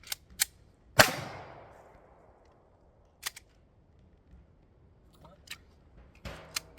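A pistol shot about a second in, its echo trailing off over about a second, and a second, quieter shot near the end. Short, sharp clicks come between them.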